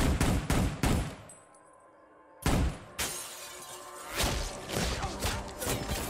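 Film sound effects of sniper rifle fire and bullet impacts, with glass shattering and rounds sparking off metal. A rapid string of four sharp hits comes at the start, a loud single one about two and a half seconds in, then several more about half a second apart in the last two seconds.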